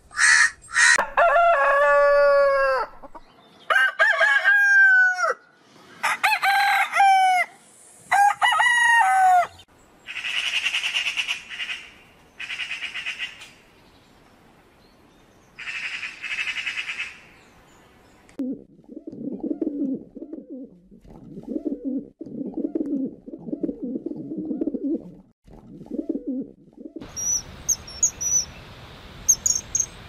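A run of different bird calls: a crow's harsh caws at the very start, then four long calls that each fall in pitch, then a Eurasian magpie's rattling chatter in short bursts. After that come lower pulsed calls, and near the end high chirps over a steady insect trill.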